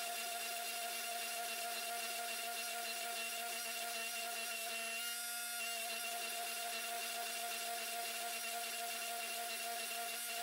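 Hydraulic forging press running with a steady hum, its flat dies squeezing a hot Damascus billet to draw it out.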